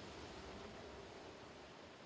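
Faint, even rustling of wind through tall grass, slowly dying away.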